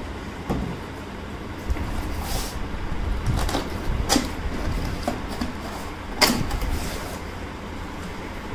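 Cardboard laptop box being handled and its lid opened: a string of knocks, scrapes and rustles, the sharpest about four and six seconds in, over a steady low rumble.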